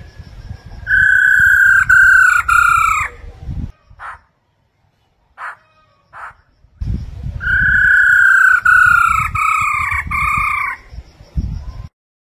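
Black-throated laughingthrush whistling in two loud phrases of clear, slightly falling notes, the first about a second in and the second about seven seconds in. A few short calls come between the phrases, and a low rumble lies under each phrase.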